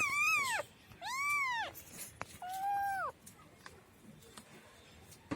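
A cat meowing three times, each call short and arching up then down in pitch, then falling quiet.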